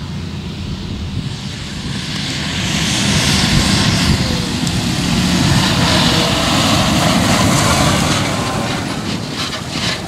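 John Deere 6R-series tractor running under power as it tows a grain trailer past close by across stubble; the engine and running noise swell as it comes alongside, then ease off near the end.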